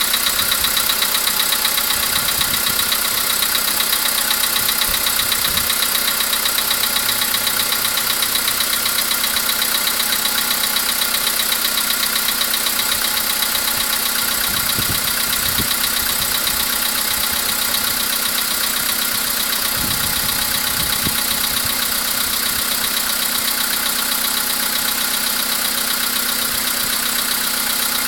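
VW CFNA 1.6-litre four-cylinder petrol engine idling steadily just after a cold start, with a fast regular knocking running through its sound: the cold-engine knock this engine is known for.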